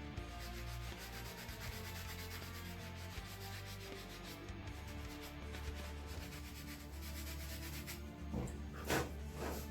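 Steady rubbing and scraping from hand work in the shop, with background music under it. Three louder strokes come near the end.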